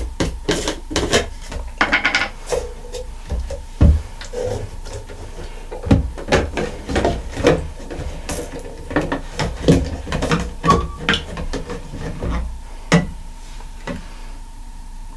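Irregular clicks, knocks and rubbing of a stainless-steel Leatherman Super Tool multitool being taken out of its soaking jar and handled, with a few heavier thumps about four and six seconds in.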